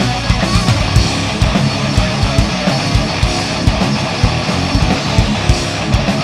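A live metal band playing an instrumental passage: distorted electric guitars over a fast, steady kick-drum beat, with no singing.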